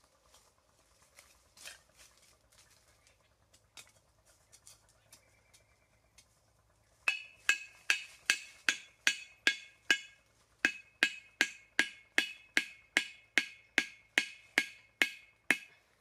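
Bamboo stake being hammered into the ground, giving sharp, hollow, ringing wooden knocks. About seven seconds in, a fast, even run of about two dozen strikes begins, roughly two to three a second. Before that there are only a few faint clicks of handling sticks.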